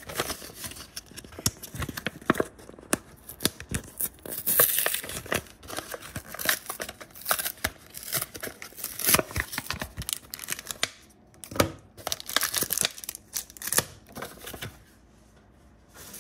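A Yu-Gi-Oh! blister pack being torn open by hand: the cardboard backing rips and the plastic crinkles in sharp, irregular crackles. The noise stops about a second before the end.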